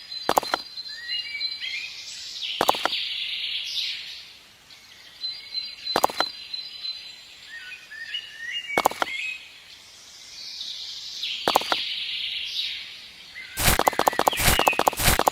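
Bird chirps and calls with a thin steady high tone, the pattern repeating about every six seconds, broken by single sharp clicks every few seconds; a fast run of clicks starts near the end.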